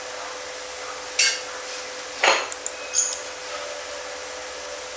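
Three short clinks and knocks of dishes or cutlery being handled, the loudest about two seconds in and the last with a brief high ring, over a steady faint hum.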